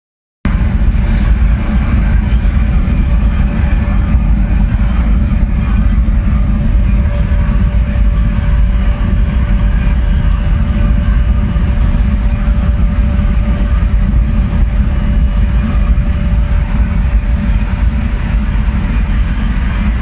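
Gas burner firing into a regenerative aluminum melting furnace, running steadily: a loud, even low rumble of combustion with a faint steady whine above it.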